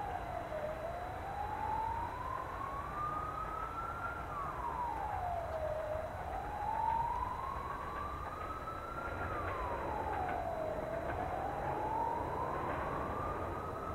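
A siren wailing in a repeating cycle, about every five seconds: its pitch drops quickly, then climbs slowly back up. A steady low rumble runs underneath.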